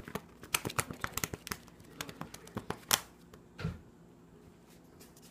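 A thick stack of paper sheets riffled and flipped through by hand, the pages flapping in quick, irregular clicks and snaps that die away near the end.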